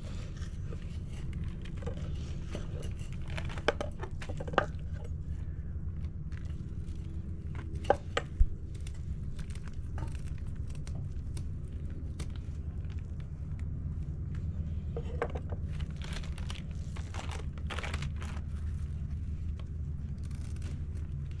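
Knife work on a wooden cutting board while filleting fish: a few sharp knocks of the blade on the board about four and eight seconds in, with light scraping and handling noises between. A paper towel rustles near the end, and a steady low hum runs underneath.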